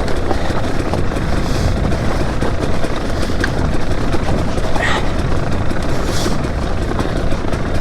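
Two-stroke enduro dirt bike ridden downhill over frozen, rough ground: a steady, rough rumble of engine, chassis rattle and tyres, with no clear engine note.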